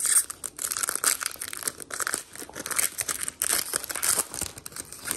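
Crinkly wrapper of a trading card pack being torn open and crumpled by hand, in quick irregular crackles that stop abruptly near the end.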